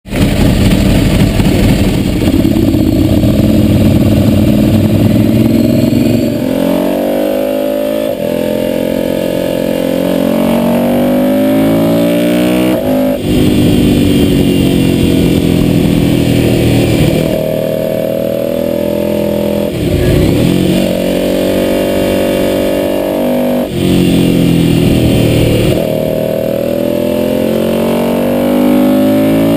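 Ducati V-twin motorcycle engine heard on board at track speed, over wind rush: the revs climb hard through the gears and fall back several times as the throttle closes for corners and the gears are shifted.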